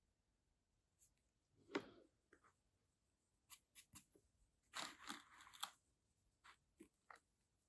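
Faint handling noises over near silence: a soft knock a little under two seconds in, then a short spell of rustling and small clicks around the middle, as paintbrushes are handled and a hand moves over the paper.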